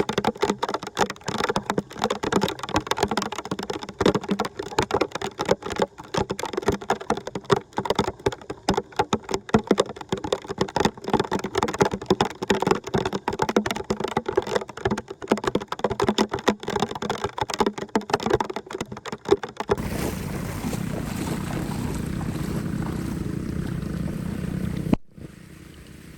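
Water splashing and gurgling as a dense, irregular crackle for most of the stretch. About twenty seconds in it gives way to a steady rush of flowing water, which cuts out briefly near the end.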